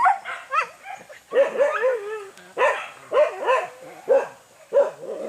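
Hunting dogs barking and yelping on a wild boar hunt, in short, high-pitched barks about two a second, several overlapping at the start.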